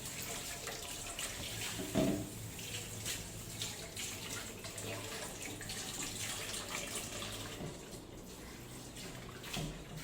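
Water from a tap running steadily into a sink, with a sharp knock about two seconds in and a few lighter clicks.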